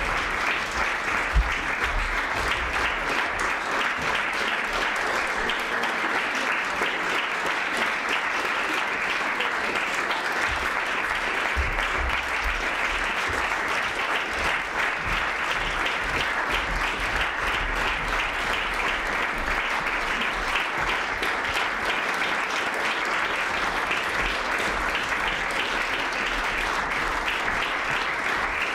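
Audience applauding steadily: dense, continuous clapping.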